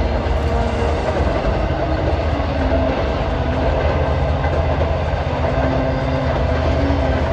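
Long Island Rail Road passenger train of bilevel coaches passing steadily, the wheels running on the rails.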